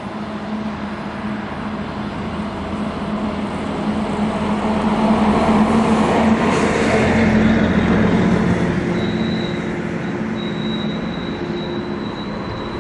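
Passing road traffic: a vehicle's engine and tyre hum swells to its loudest about halfway through and then fades, with a faint high whine from about nine seconds in.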